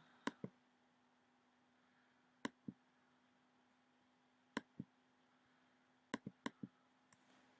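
Computer mouse clicking in quick pairs, a double click about every two seconds, then four clicks in a row near the end, over a faint steady hum.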